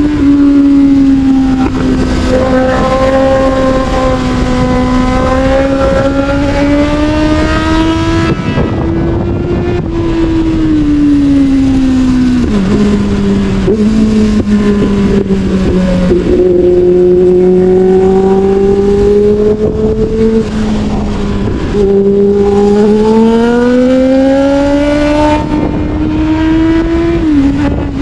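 Sportbike engine running hard under way, its pitch rising and falling with the throttle, with sudden drops in pitch about 12 and 22 seconds in and a jump up about 16 seconds in as gears change. Wind rushes over the microphone throughout.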